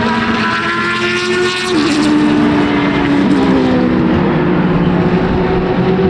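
Judd-engined Brun C91 Group C prototype and a touring car racing past and pulling away, their engines at high revs. The engine note drops in steps about two seconds in and again a second later as the cars shift down for the corner.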